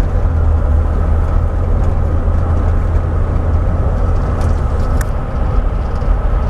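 Steady low rumble of a car driving, heard from inside the cabin, with a light click about five seconds in.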